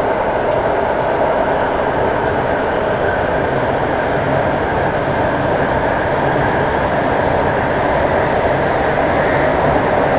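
Santiago Metro Line 6 AS-14 train running at speed through a tunnel, heard from inside the car: a steady, even running noise of wheels on rail, echoing in the tunnel.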